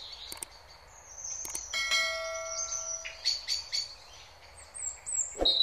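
A subscribe-button sound effect over birdsong: a few sharp mouse clicks, then a bright bell chime that rings for about a second. Short high bird chirps follow, and a dull thump comes near the end.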